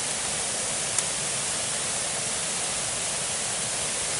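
A steady, even hiss like rushing water, with one sharp click about a second in.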